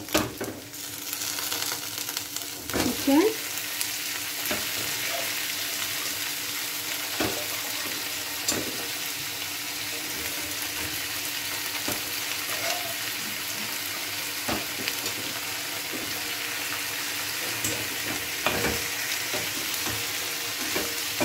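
Chicken pieces and chopped vegetables sizzling in oil in a kadai, a steady frying hiss that grows louder about a second in as the boiled chicken goes in. A few short knocks and scrapes of the wire strainer spoon and wooden spatula against the pan while it is stirred.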